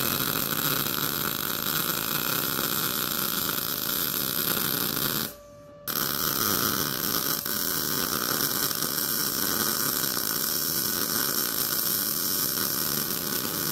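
MIG welding arc from an Arccaptain MIG 200 laying a straight stringer bead on thin 1/16-inch mild steel square tubing: a steady crackling sizzle. It stops for about half a second a little past the middle, then starts again and runs on.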